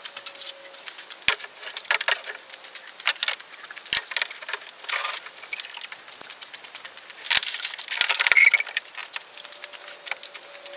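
Irregular clicks, rattles and light knocks of one-handed bar clamps and wood being handled on a workbench, with a busier stretch of scraping and clattering about three-quarters of the way through.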